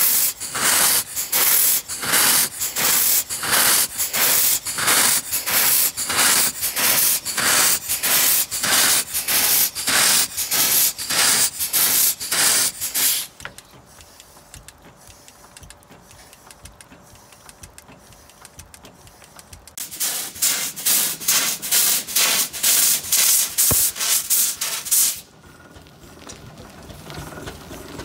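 Fowler steam roller's engine running with steam jetting from its cylinder drain cocks: loud, rhythmic hissing blasts of steam, about two to three a second. The blasts stop about 13 seconds in, leaving the engine turning over quietly, then come back about 20 seconds in and stop again near the end.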